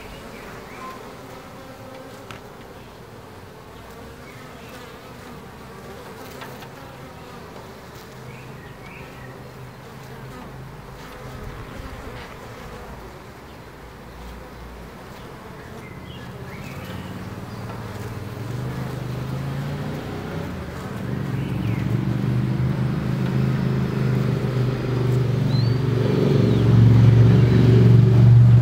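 Honeybees buzzing at a wooden hive entrance. The steady hum of many bees grows louder over the second half and is loudest near the end.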